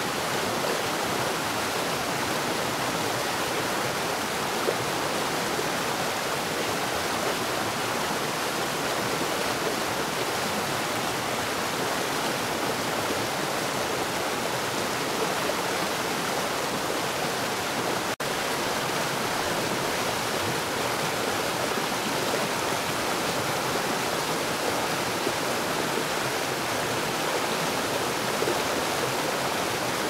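Flowing stream water, a steady rush with no change in level, broken by a split-second dropout about two-thirds of the way through.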